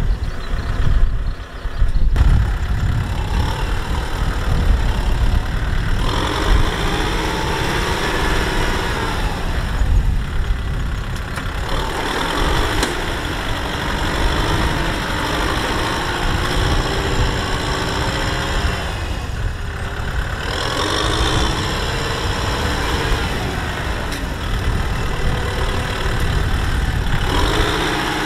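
Kubota M6040SU tractor's four-cylinder diesel engine labouring under load, its pitch rising and falling again and again as the tractor, bogged in deep mud, tries to pull free.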